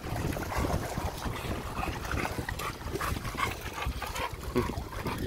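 Dogs wading and splashing through shallow water, with a few short dog whines. Wind rumbles on the microphone throughout.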